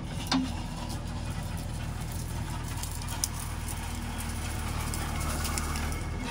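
JCB backhoe loader's diesel engine running steadily at an even pitch while the backhoe digs soil, with scattered sharp clicks and knocks, the plainest shortly after the start and another about three seconds in.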